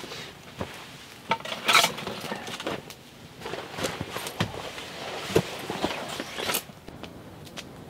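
Footsteps crunching over dry leaves and sticks, mixed with irregular light clinks and knocks of handled gear as a man walks off.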